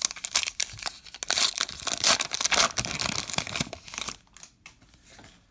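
A baseball card pack's wrapper being torn open and crinkled, a dense crackling that stops about four seconds in.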